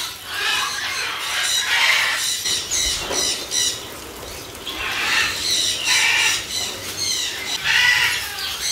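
Parrots giving repeated harsh squawks in clusters, with a lull about three to four seconds in.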